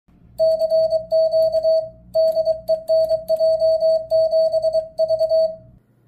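Morse code sent on an iambic paddle through an electronic keyer: a steady mid-pitched sidetone beep keyed into quick dits and dahs, spelling out a general call, CQ DE NJ7V, with short pauses between the words. The keying stops just before the end.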